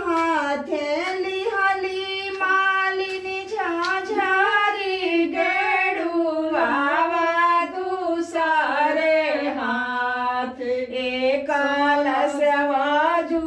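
A woman singing a Bhojpuri devotional folk song to the Mother goddess (devi geet) unaccompanied, in long held, wavering notes.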